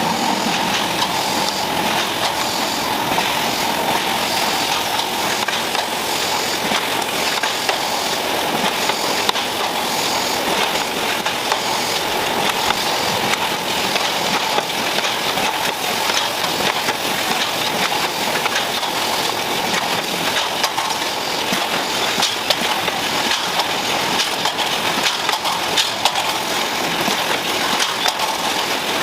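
Factory production-line machinery running steadily, with a constant mechanical din and many small clicks and clatters.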